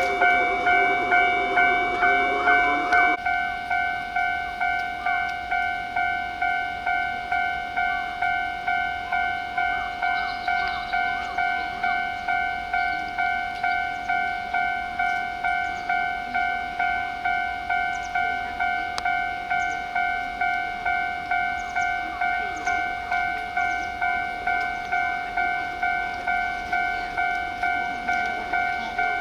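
Japanese railway level-crossing warning bell ringing steadily, about two rings a second. For the first three seconds a passing train's running noise is heard under it, then stops suddenly.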